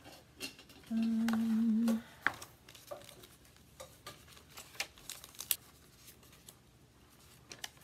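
Paper and plastic craft packaging being handled: scattered crinkles, rustles and light clicks. About a second in, a person hums one held note for about a second.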